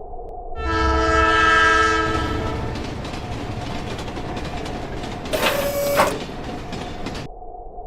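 A train horn sounds once for about two seconds, starting about half a second in and fading away, over the steady rumble of a train running on the rails. About five seconds in there is a short, loud burst of another sound.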